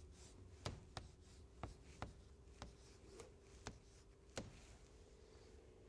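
Chalk writing on a chalkboard: a string of faint light taps, roughly one or two a second, as each stroke meets the board, over a faint steady hum.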